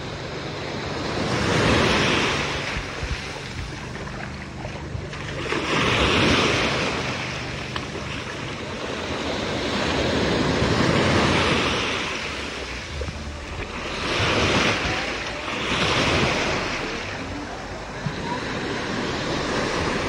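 Small waves washing in on a sandy shore and against the hull of an outrigger boat, swelling and fading every few seconds, with wind buffeting the microphone.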